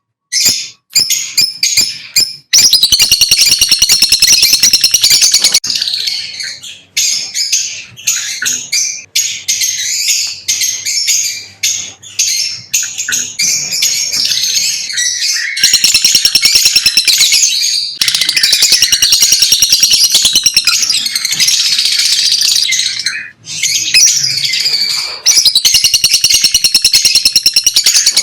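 Lovebirds chattering: continuous rapid, high-pitched chirping, rising several times into louder stretches of very fast repeated calls.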